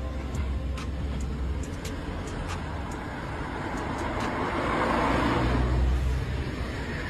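Road traffic noise: a steady low engine rumble, with a car passing close that swells loudest about five seconds in and then fades.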